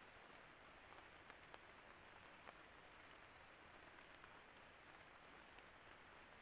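Near silence: a trail camera's faint hissing forest background, with a faint high-pitched pulsing repeating several times a second and a few faint ticks.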